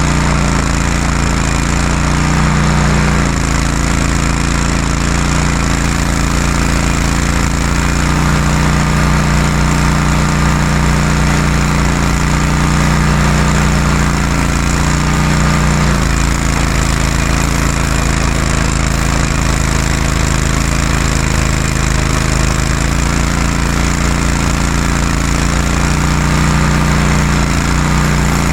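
Gas-engine stump grinder running hard and grinding an oak stump, a loud steady engine drone whose note shifts a few times.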